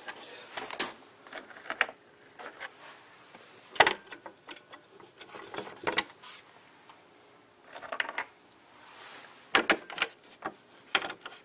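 Scattered light clicks and taps as metal acorn nuts and a plastic engine cover are handled and fitted by hand. The sharpest tap comes about four seconds in, with small clusters of clicks later on.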